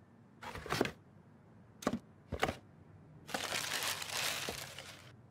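A cardboard shoebox being opened: a short scrape and two light knocks as the lid comes off, then tissue paper crinkling for about two seconds as it is pulled out of the box.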